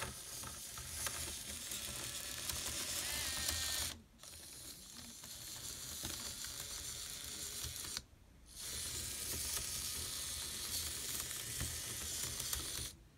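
Small tracked robot driving on its plastic chain-link tracks, geared micro servos whirring and the track links clattering over the sprockets. It runs in three spells, stopping briefly about 4 s in and again about 8 s in, and cuts off just before the end.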